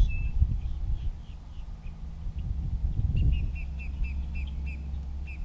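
A bird calling, with scattered faint chirps early on and then a quick run of about eight short, repeated chirps a little past halfway, over a steady low hum and rumble.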